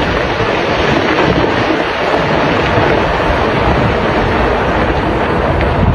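Loud, steady rushing roar of torrential floodwater, with wind buffeting the microphone.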